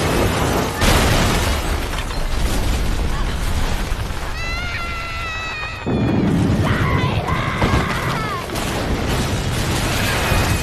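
Earthquake and building-collapse sound effects: a continuous deep rumble with crashing debris, a heavy impact about a second in, and a sudden surge of low rumbling about six seconds in.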